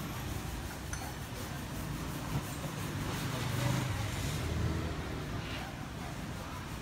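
Steady street traffic noise with the low, wavering hum of running engines.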